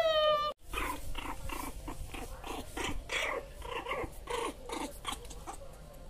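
Pomeranian puppy making a run of short, rough whimpers and play growls, several a second, while being held and played with. A brief dropout cuts in about half a second in.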